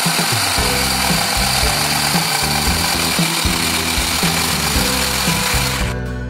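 Electric hand blender with a whisk attachment running steadily, beating melted butter and sugar in a stainless steel bowl; it cuts off suddenly near the end. Background music plays underneath.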